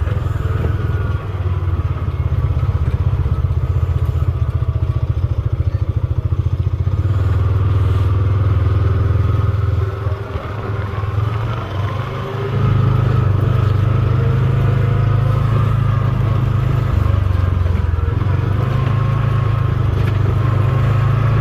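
A farm vehicle's engine running as it drives along. The engine note drops and eases off about ten seconds in, then picks back up steady for the rest.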